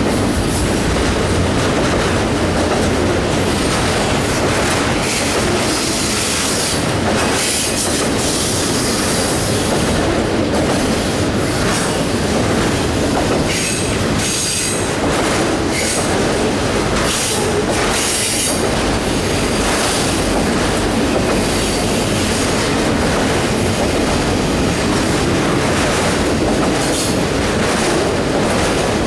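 Autorack cars of a freight train rolling steadily past on a curve: continuous noise of steel wheels on rail, with high-pitched wheel squeal rising and fading several times.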